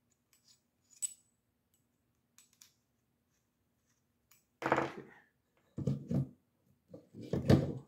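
Light metallic clicks of a hex key working a scope-ring screw, then several louder metal clunks and knocks, strongest near the end, as the scope in its mount is set onto the rifle's rail.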